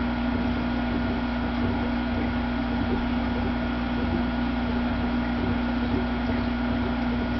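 Steady electrical hum of an aquarium pump running, with one constant low tone over a light even hiss.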